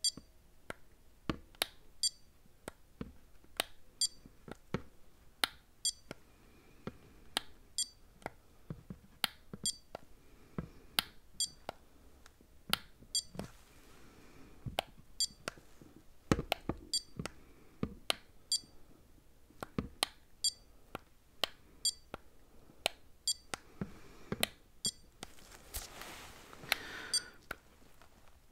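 A long series of sharp clicks, roughly one or two a second and uneven in spacing, many trailed by a short high-pitched ticking. A soft rustle comes near the end.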